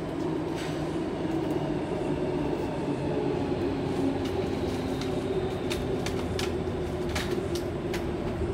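Steady running hum inside a Sydney Trains Waratah carriage, with a faint high whine in the first half and a run of sharp clicks in the second half.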